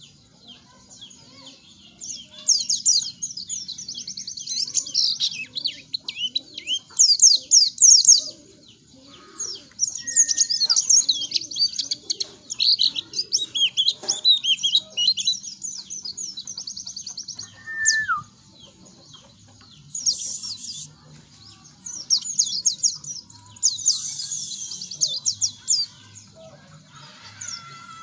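White-eye (pleci) singing a fast, high, twittering song in phrases of a few seconds, with short pauses between them. It is a lure song meant to prompt young caged white-eyes to start singing.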